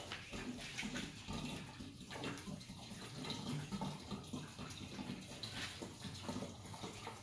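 Household bleach pouring from an upturned plastic jug into a gravity-flow liquid chlorinator's 3-gallon reservoir, a steady pour with irregular low glugs.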